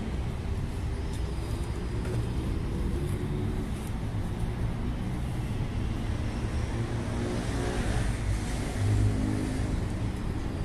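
A vehicle engine running with a steady low rumble, growing louder for a moment about eight to nine seconds in.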